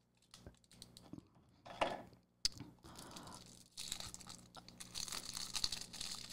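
Scissors snipping into a plastic-wrapped pack, with a sharp snap a couple of seconds in, then the plastic wrapping crinkling and tearing as it is pulled off by hand, the crinkling running on through the second half.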